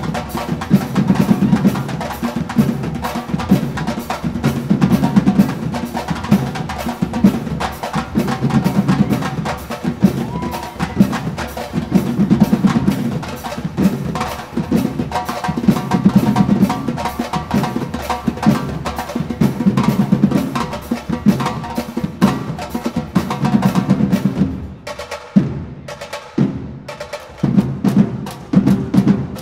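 Batucada drum ensemble playing a loud, driving rhythm on bass drums, stick-played barrel drums and tall hand-played drums. About 25 s in, it drops to a few isolated hits for a couple of seconds, then the full groove comes back in.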